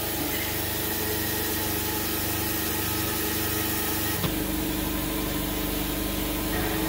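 Cylinder boring bar's electric motor running with a steady hum. About four seconds in there is a click and the hum shifts and grows a little fuller as the bar is lowered into the cylinder bore of the engine block.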